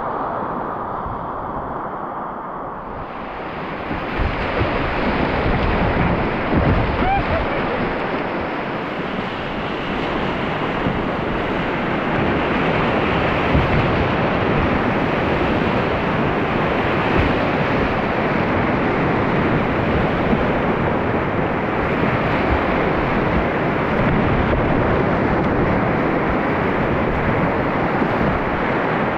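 Whitewater rapids rushing around an open canoe, with wind buffeting the microphone. The rush turns brighter and louder about three seconds in.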